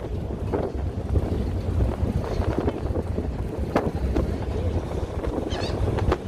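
Wind buffeting the microphone over the low, steady rumble of a car ferry underway, with one sharp click a little past halfway.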